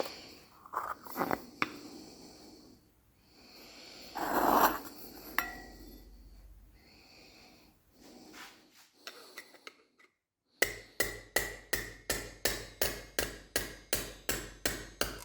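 Metal being handled with scattered clanks and knocks, one of them ringing briefly. About ten seconds in, a steady run of hammer blows on metal begins, about three or four strikes a second, each ringing, as a small lamp dish is hammered into shape.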